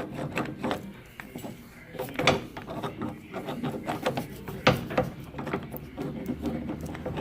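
Irregular metal clinks, knocks and scraping as a Honda Accord's CV axle is worked down and pulled out of the front hub. Two sharper knocks stand out, about two and four and a half seconds in.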